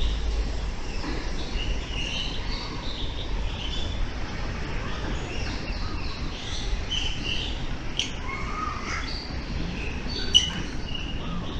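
Many birds of mixed species chirping and calling at once, short scattered notes overlapping, with one sharp, loud call near the end, over a steady low rumble.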